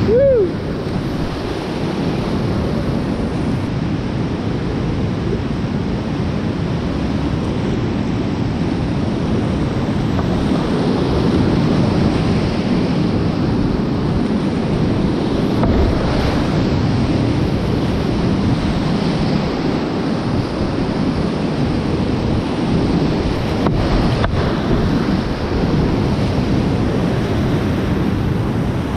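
Loud, steady rush of whitewater rapids, heard from a kayak in the rapid, with wind buffeting the microphone. At the very start a short pitched call falls in pitch.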